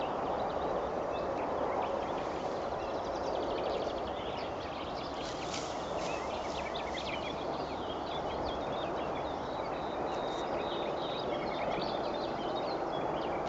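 Field ambience: a steady hiss with many small birds calling over it, short high chirps, trills and quick ticking runs, busiest from about two to eight seconds in.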